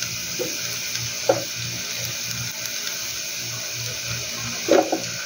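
Minced garlic sizzling in hot oil in a frying pan, a steady hiss, with a few knocks and scrapes of a wooden spoon against the pan, the loudest near the end.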